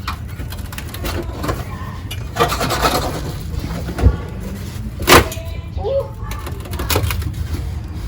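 Scraping and two sharp knocks as a rusted car fuel tank, held up only by caked dirt, is wiggled and worked loose from underneath the car.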